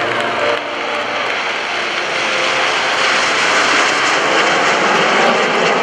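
Jet noise of a formation of nine Canadair CT-114 Tutors, each with a single turbojet, passing overhead: a steady rushing noise that grows louder about two seconds in.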